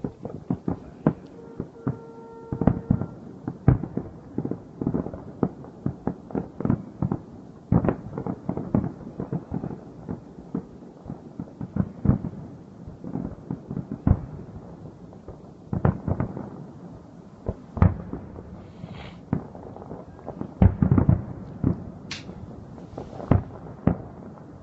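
Aerial fireworks display: a continuous, irregular barrage of dull, muffled bangs from shells bursting, with denser, louder clusters of bangs now and then.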